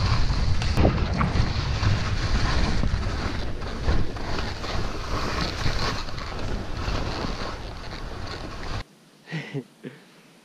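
Wind rushing over the microphone of a camera carried by a skier descending fast through snow, with the hiss of skis on snow underneath. It cuts off abruptly about nine seconds in, leaving near quiet with a few faint rustles.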